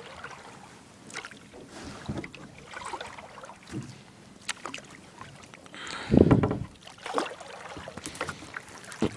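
Kayak paddle strokes swishing and splashing in the water, about one a second, with a louder, deeper knock about six seconds in.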